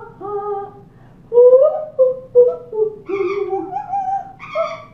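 An Amazon parrot and a woman singing together, a string of short held notes that step and slide between pitches, the two voices sometimes overlapping.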